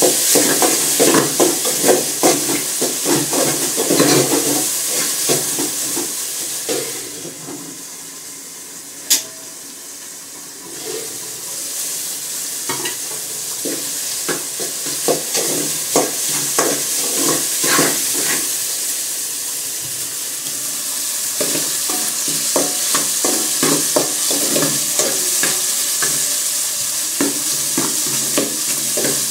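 Chopped tomatoes sizzling as they fry in an aluminium pot, with a metal spoon stirring and scraping the bottom in frequent small clicks. The sizzle drops away for a few seconds near the middle, broken by one sharp clink, then picks up again.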